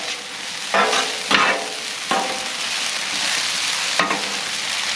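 Stir-fry noodles and vegetables sizzling on a hot Blackstone steel griddle while metal spatulas scrape and toss them, with a few scraping strokes in the first couple of seconds and another about four seconds in.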